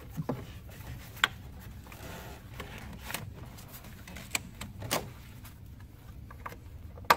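Handling noise as a rubber hose is worked under a wiring harness in an engine bay: light rubbing with a few sharp, separate clicks and knocks of plastic and fittings. The loudest click comes near the end.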